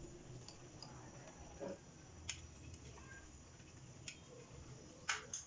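Chopsticks clicking lightly against a clay pot a few times, a close pair of clicks near the end the loudest, over a faint low hum.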